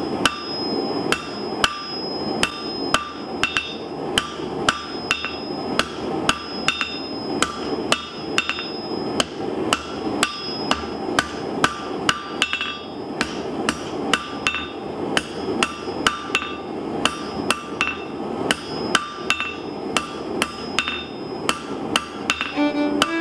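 Hand hammer striking a hot steel round bar on an anvil, in a steady run of about two to three blows a second, each blow leaving a high metallic ring from the anvil. This is hand forging, drawing a taper on the end of the bar.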